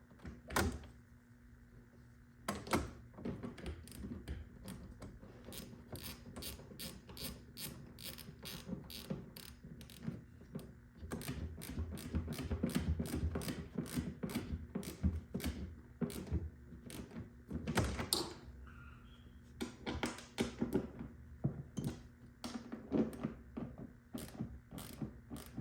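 Hand ratchet wrench clicking in quick runs as bolts are turned and tightened during a short shifter installation, with a few louder knocks between runs.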